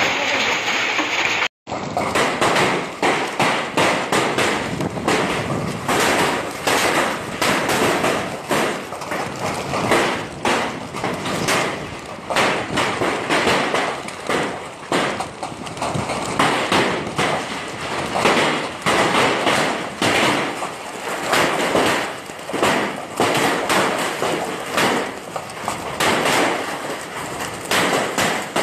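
Hailstones pelting down: a dense, irregular clatter of many hard impacts, with the sound cutting out for a moment about a second and a half in.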